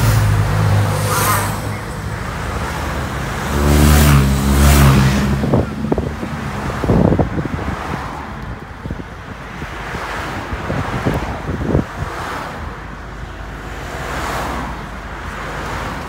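Escort motorcycles and support cars of a bike race convoy passing close by on the road, engines swelling and fading as each goes past. The loudest pass comes about four seconds in.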